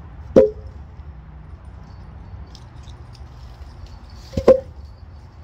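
Heavy cut log sections knocking against one another as they are set onto a log pile, each a hollow wooden knock with a short ring: one just after the start, and a quick double knock about four seconds later.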